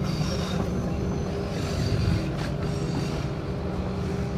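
Diesel railbus running along the line, heard from inside the passenger car: a steady low engine drone over the rumble of wheels on the rails, with one brief click a little past halfway.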